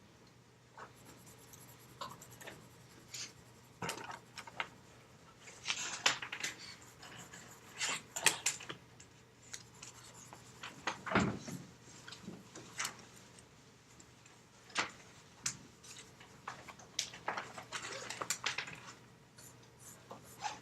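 Graphite pencil scratching and rubbing across paper in irregular strokes and bursts, as in drawing and shading. There is one dull thump about eleven seconds in.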